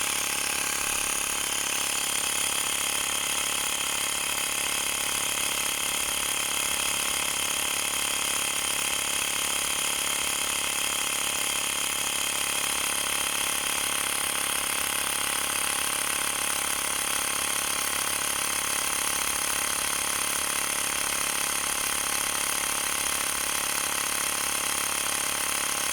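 Xiaomi portable electric air compressor running steadily as it inflates, a loud, even buzzing drone.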